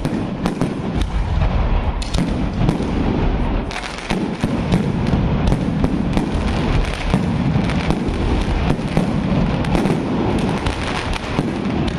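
Fireworks display with aerial shells bursting overhead: many sharp bangs in quick succession over a steady low rumble, with no let-up.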